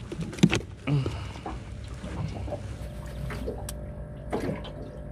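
Knocks and handling clatter inside a small aluminium fishing boat, the sharpest about half a second in, over a steady low hum of the boat.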